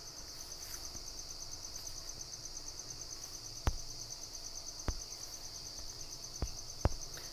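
A steady, high insect trill of fast, even pulses runs in the background, with four short clicks in the second half.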